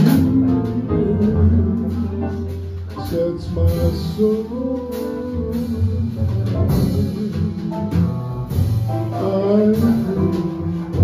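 Small jazz combo playing a ballad live: guitar over upright bass, piano and lightly played drums, with a male voice singing.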